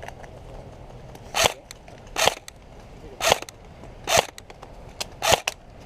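Airsoft gun firing single shots: about six sharp pops, roughly one a second, each with a brief mechanical whir after it.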